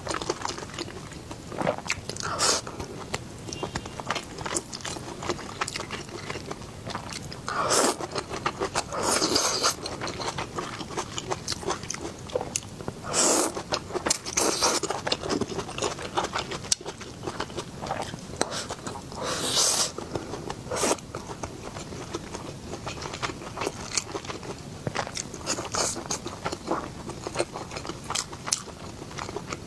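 Close-up eating sounds: a person biting and chewing crunchy food, with a constant patter of small wet chewing clicks and a handful of louder crunchy bites spread through.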